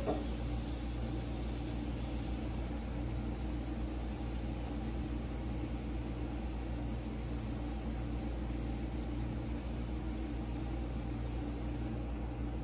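Steady low mechanical hum with a faint even hiss, unchanging throughout, with one brief sharp sound at the very start.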